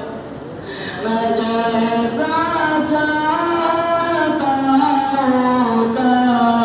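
A single voice singing a slow melody with long held notes, dropping out for a moment at the start and coming back in about a second in.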